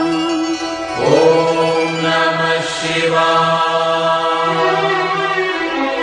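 Hindu devotional Shiva bhajan music: long held melodic notes over a low steady drone, with a new note sliding in about a second in and the drone dropping out near the end.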